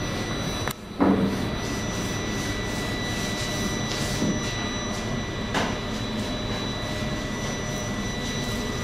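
Steady engine drone carrying a constant high whine, as inside a moving vehicle. It cuts out for a moment just before the first second, then comes back slightly louder.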